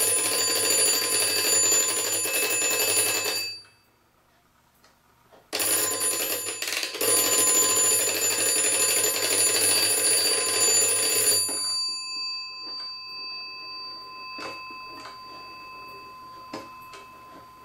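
Vintage kitchen clock's alarm bell ringing continuously in two runs of several seconds each, broken by a short pause about four seconds in. After the second run the bell's ring fades away, with a few light clicks near the end. The alarm is set off by turning the alarm dial, to check that the alarm's trip rod is engaged on its shaft.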